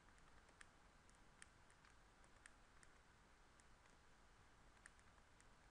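Near silence with several faint, sharp clicks scattered through it: a stylus tapping on a pen tablet while letters are handwritten.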